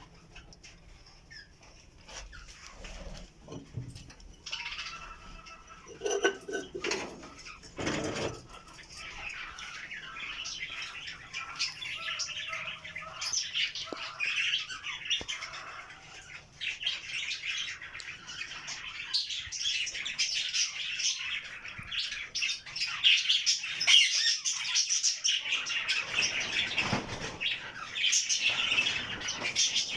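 A flock of budgerigars chirping and chattering, with a few wing flutters; the chatter grows busier and louder through the second half.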